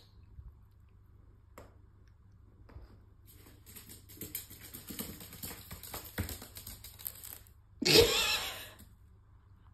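Bearded dragon's claws clicking and tapping on a hardwood floor as it scurries, a rapid run of small ticks starting a few seconds in. A short, louder noise comes near the end.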